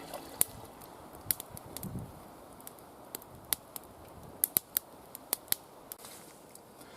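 Scattered sharp clicks and small snaps at irregular intervals, over a faint background hiss.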